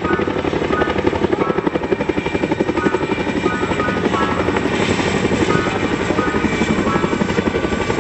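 Boeing CH-47 Chinook tandem-rotor helicopters flying low past, their rotors beating in rapid, even pulses.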